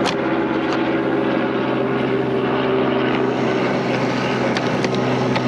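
G scale model locomotive running, its electric motor and gearing giving a steady hum, with a few faint clicks.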